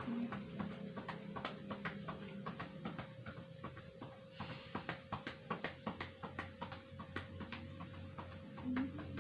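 Hands patting rhythmically on a person's back over the lower ribs, about three pats a second: chest percussion to loosen secretions in the lower lung lobe. A faint steady hum runs underneath.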